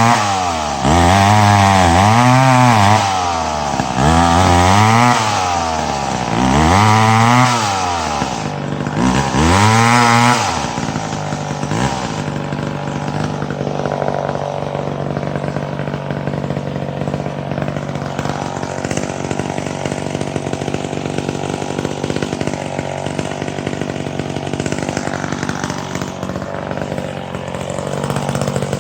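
Gas chainsaw revved up and down about five times, each rise and fall taking about two seconds. About eleven seconds in it drops back to a steady idle.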